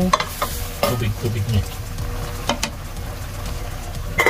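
Chicken pieces sizzling in a stainless steel pot while a wooden spatula stirs them, with a few sharp knocks against the pot. Near the end a metal lid clanks onto the pot with a brief ring.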